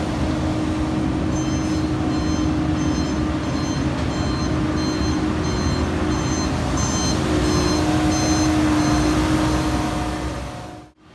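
Heavy construction machine's diesel engine running steadily while its backup alarm beeps repeatedly, about one and a half beeps a second. The sound drops away abruptly just before the end.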